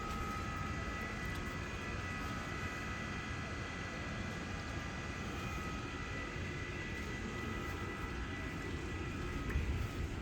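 Refrigeration unit of a walk-in cold store running on a test run: a steady mechanical drone with a low rumble and two thin high tones held throughout.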